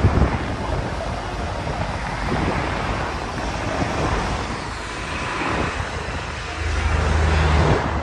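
Wind buffeting the microphone over a steady low engine rumble, which swells from about six and a half seconds in and drops away just before the end.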